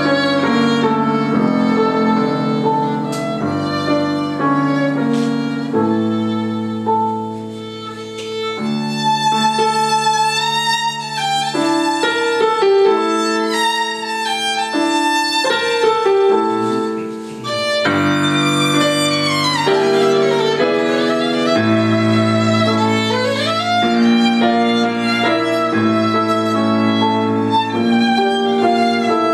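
Live violin and digital piano duo: the violin plays the melody with vibrato over sustained piano chords, with a long downward slide a little past the middle and a short upward slide soon after.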